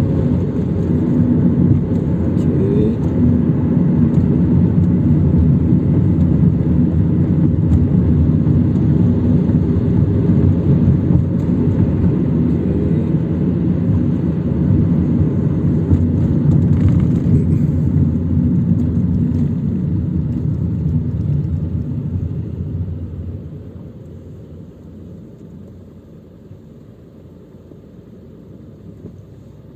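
Road and engine noise inside a moving car's cabin: a steady low rumble that drops off sharply about three quarters of the way through as the car slows down.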